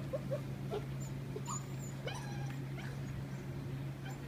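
Black Russian terrier puppies giving short, scattered whimpers and yips as they play, some gliding up in pitch, over a steady low hum.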